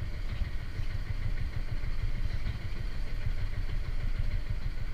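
Small fishing boat's engine running steadily at a low idle, a continuous low rumble.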